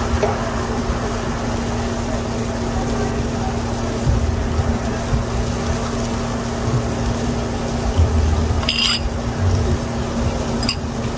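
Meat cooking on a grill: a steady low rumble and hum, with a short scrape of a fork on the grill about nine seconds in.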